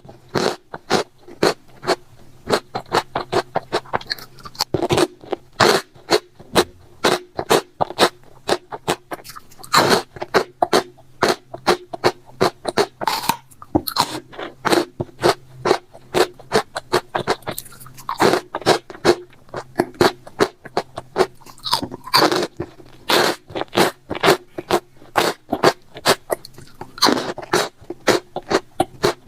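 Close-up mukbang eating sounds: crisp food being bitten and chewed, with rapid sharp crunches several times a second and brief pauses between mouthfuls.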